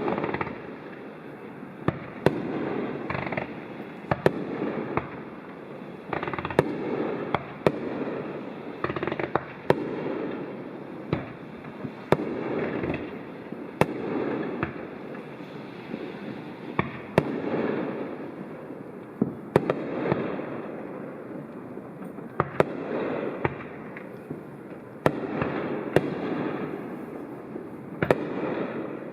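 Fireworks display: sharp bangs of bursting shells come one to several a second, over a continuous rumble of booms that swells and fades every second or two.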